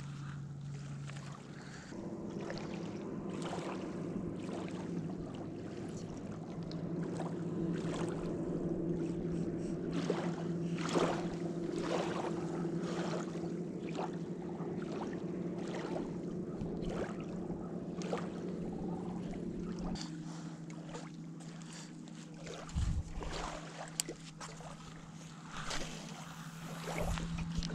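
A steady low motor hum whose pitch shifts about two seconds in and again about two-thirds of the way through. Scattered light clicks run over it, and a couple of dull thumps come near the end.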